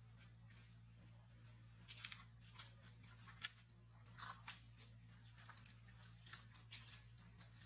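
A baby macaque handles and gnaws a thin dry twig among dry leaves: irregular small crisp crackles and clicks, mostly from about two seconds in, over a faint steady low hum.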